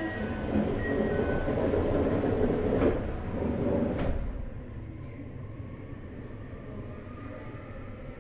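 Inside a JR Hokkaido 733-3000 series electric train's motor car running on the line: the wheel and motor rumble is loud at first, then drops suddenly to a quieter steady rumble about four seconds in.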